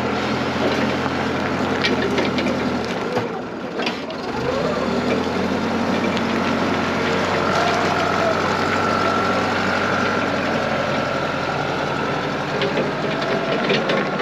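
Forklift engine running steadily, its pitch rising and falling several times as it is worked to lift and place a log, with a brief dip about four seconds in.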